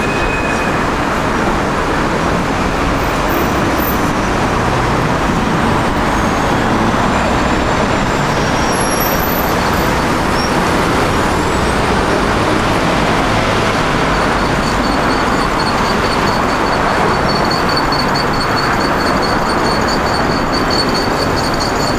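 City street traffic: a steady rush of road noise from passing vehicles. A faint high-pitched whine comes in about two-thirds of the way through.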